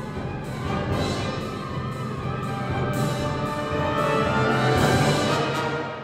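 Full symphony orchestra playing live, brass and timpani prominent over the strings, swelling to a loud peak about five seconds in and then dropping away.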